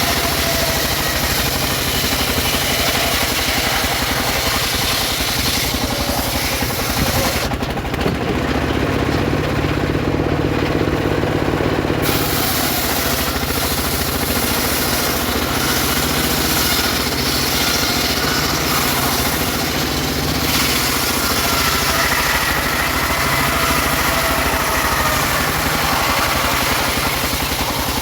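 Homemade circular saw ripping sengon wood into boards, over the steady drone of its drive. The higher cutting hiss drops away for about four seconds near the middle, then comes back.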